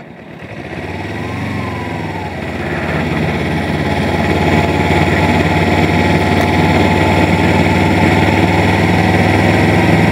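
Motorcycle engine running at a steady low road speed, heard with wind and road noise through the rider's helmet microphone. It grows louder over the first few seconds, then holds steady.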